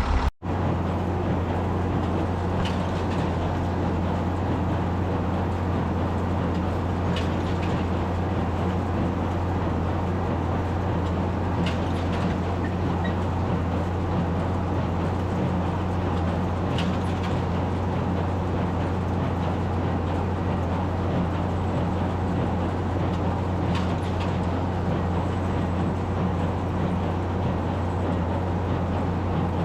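Tractor engine running at a steady speed, with a constant low drone and faint clicks every four to five seconds.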